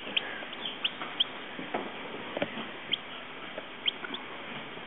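Newly hatched bantam chicks peeping: short, high cheeps at irregular intervals, about half a dozen of them.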